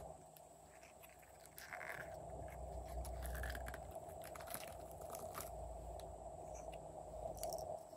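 Soft, faint crunching and scattered light clicks of hand-handling: clay figures being pressed down into clear slime strewn with sprinkles and beads.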